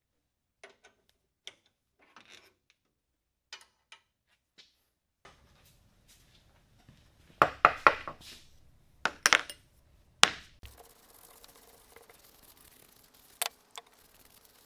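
Small steel and brass hand-plane parts (screws, washers, adjuster nut) clinking and being set down on a wooden workbench, with a screwdriver at work: a few light clicks at first, then a quick run of louder metallic clinks around the middle and a few single clicks after.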